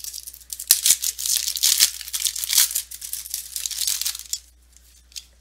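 A trading-card pack's foil wrapper being torn open and crinkled: a run of dense crackling and tearing that stops about four seconds in.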